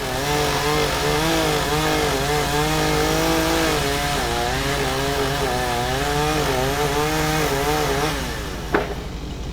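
Chainsaw cutting through a wooden barn post, its pitch wavering up and down as it works under load. About eight seconds in it falls away, and there is a sharp click.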